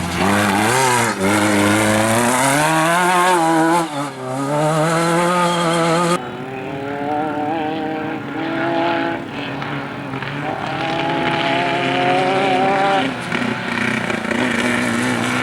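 Off-road race vehicle engines revving hard, the pitch climbing and falling with throttle and gear changes. About six seconds in the sound cuts abruptly to a duller engine note that rises again under throttle.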